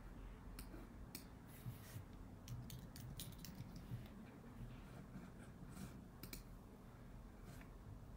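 Faint, irregular light clicks and taps, a dozen or so scattered through, bunched around the second to fourth second and again in the last few seconds, over a low steady room hum.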